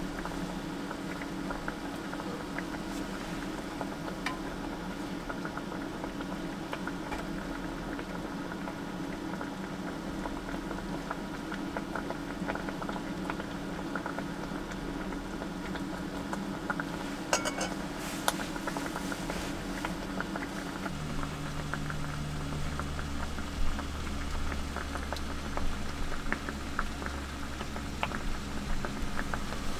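Hotpot broth bubbling at a boil in an electric hot-plate pot, a steady fine crackle of bubbles over a low hum, with a few light clinks of chopsticks and dishes. A deeper low hum joins about two-thirds of the way through.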